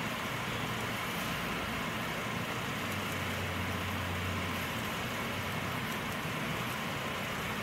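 Steady distant mechanical noise: a constant hiss with a low engine hum that grows louder for about a second and a half, about three seconds in.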